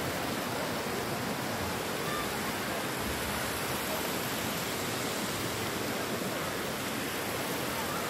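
Spring-fed stream water rushing down a sloped spillway close by: a steady, even hiss of falling water.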